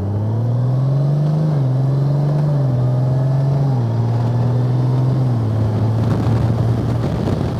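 Motorcycle engine pulling under the rider: its note climbs, then drops in steps several times as the bike shifts up through the gears, and settles into a steady cruise, with wind rush rising near the end.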